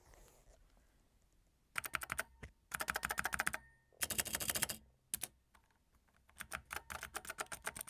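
Mechanical keyboard with Kailh switches being typed on fast, fitted in an empty Amiga 1200 case that gives the key clicks some resonance. After a quiet second or so come several short runs of rapid keystrokes, then steady typing from about six seconds in.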